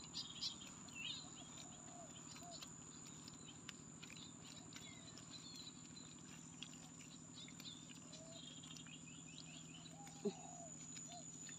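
Faint outdoor ambience: small birds chirping now and then over a steady low hum and a thin high whine, with one soft knock about ten seconds in.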